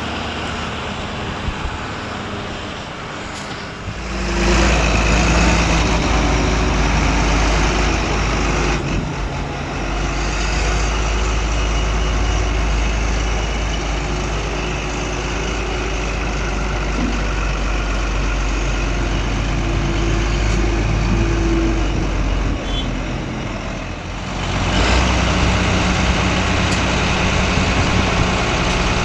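Heavy diesel farm machinery running during maize silage chopping, forage harvesters and tractors, with a steady deep engine drone. The sound changes abruptly about 4, 9 and 24 seconds in.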